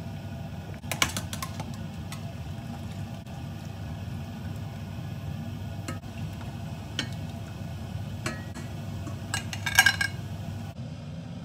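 Metal tongs clinking against a stainless steel pot as cooked artichokes are lifted out, with water dripping back into the pot. There are scattered single clinks, then a louder cluster of clinks near the end, over a steady low hum.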